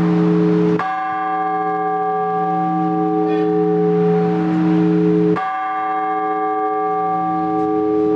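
Orthodox church bell tolling, struck twice about four and a half seconds apart, each stroke ringing on with a long, slowly fading hum.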